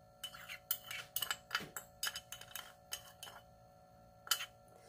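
Small kitchen utensils and containers being handled: a run of irregular light clicks and clinks for about three seconds, then one sharper click near the end.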